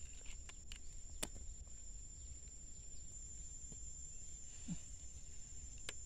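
Steady high-pitched insect drone, with a few sharp clicks and taps from hands working the wooden stakes and string of a small trap, most in the first second and one near the end.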